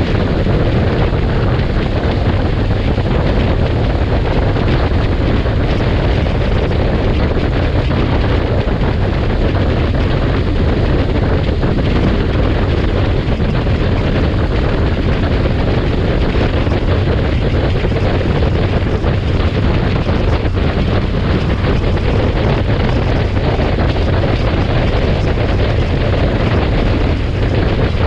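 Steady wind rush buffeting the microphone of a camera on an open vehicle travelling at road speed, with engine and road noise beneath it.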